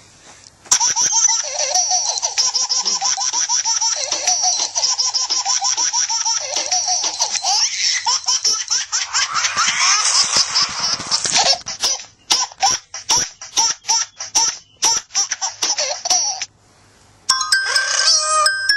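Laughter-like vocal sounds from a man imitating sound effects with his voice, in a long run of bending, choppy bursts with a short pause near the end.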